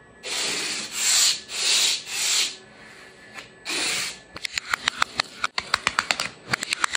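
Adhesive tape ripped off the roll in several long, noisy pulls, then a fast run of sharp clicks and scrapes as a flat scraper presses the tape down onto the slotted aluminium machine bed.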